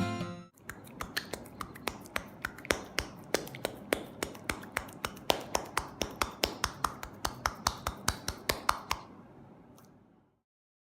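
A quick, irregular run of sharp clicks or crackles over a soft hiss, which fades out near the end.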